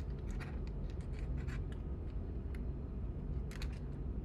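Light clicks, ticks and scrapes of an opened multimeter being handled as its new fuse is seated and its parts worked back into place, over a steady low hum.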